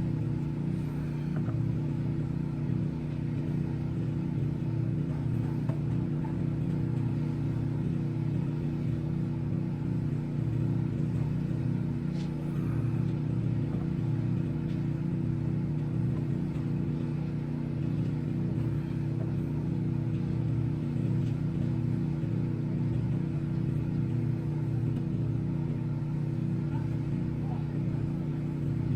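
2002 Honda CR-V engine idling steadily after its oil change, a constant low hum with no change in speed.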